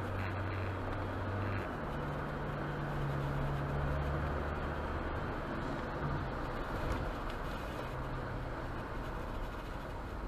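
Car driving at highway speed on a wet road, heard from inside the cabin: steady tyre and road noise over a low engine hum that shifts in pitch a couple of times as the car speeds up.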